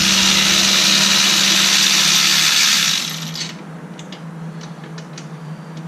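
A shop tool runs loudly with an even hissing rush for about three seconds, then drops to a steady low hum with a few light clicks, while the 14 mm bolts of the rear hub bearing are being worked out.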